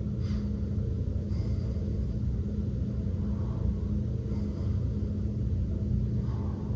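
Steady low rumble with a constant low hum, and a few faint, slow breaths over it.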